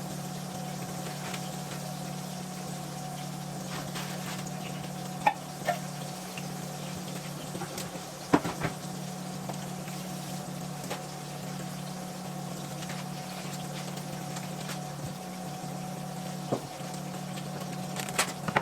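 Steady kitchen hum with a faint constant tone, broken by a few short clicks and knocks of utensils or cookware.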